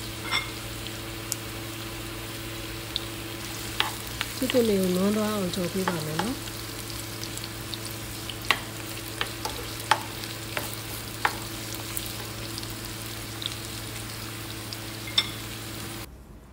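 Sliced onions sizzling in oil in a nonstick frying pan, stirred with a wooden spoon that clicks and knocks against the pan, over a steady low hum. A short wavering hum rises and falls about five seconds in, and the sizzle cuts off suddenly just before the end.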